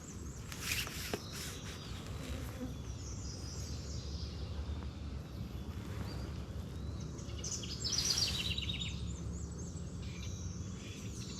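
Small songbirds singing in woodland over a steady low outdoor background hum. Short phrases of quick high notes come and go, with a brighter, rapid run of notes about two thirds of the way in.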